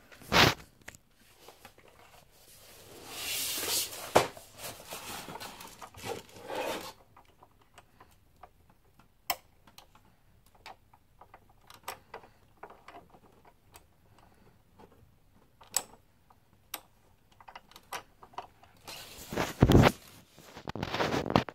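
Handling noises from unboxing a Sizzix Fold-Away die-cutting machine: a sharp knock at the start, a stretch of rustling about three to seven seconds in, scattered single clicks, and a louder burst of knocks and rustling near the end.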